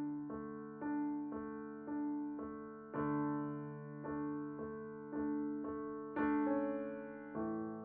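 Slow, gentle piano music: single notes struck about twice a second over a held low note, each ringing and fading before the next.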